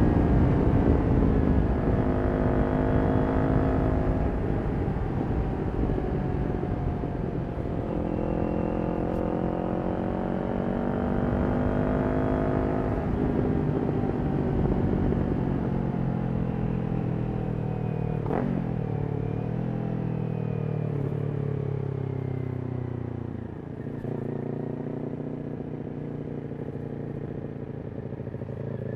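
Kawasaki Ninja 400's parallel-twin engine through a Yoshimura aftermarket exhaust while riding. The revs fall at first, climb again about a third of the way in, ease off, and settle to a lower, steady note near the end.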